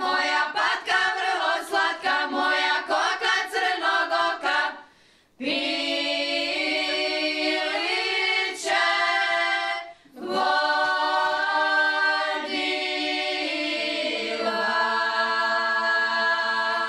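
A women's folk singing group sings a traditional Šokac song a cappella. Quick short syllables come first, then, after two brief pauses, two long held phrases. The last held note ends the song.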